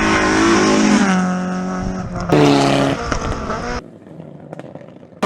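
Rally car engines at high revs on a stage, in short cut-together clips. The engine pitch drops in the first seconds, then another car comes in louder, and near the end the sound drops suddenly to a quieter stretch.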